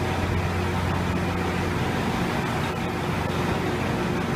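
New York subway vacuum train's machinery running with a steady drone: a strong low hum with a few even tones above it.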